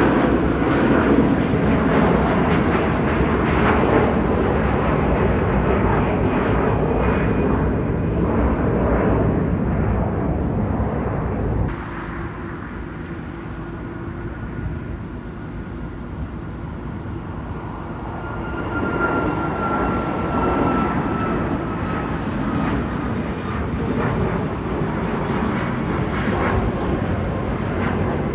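Jet airliner engines running loud, with a whine over the noise. The sound drops suddenly about twelve seconds in, then builds again, carrying a slowly falling whine.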